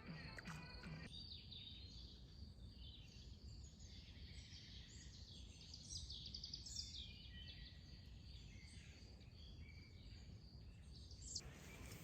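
Faint birds chirping and trilling in quick high phrases over a low steady outdoor background rumble, with a thin steady high-pitched tone underneath.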